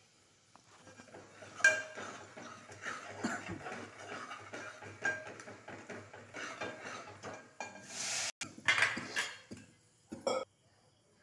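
Steel ladle stirring and scraping around an aluminium pot of simmering gravy, with irregular metal-on-metal clinks. There is a sharp clink about a second and a half in, and a louder scraping rush around eight seconds.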